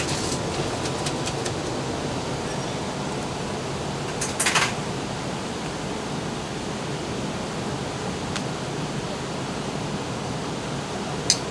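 Steady rushing noise of a commercial kitchen's ventilation, with light metal clinks near the start, a short louder clatter of metal utensils about four seconds in, and a sharp click near the end.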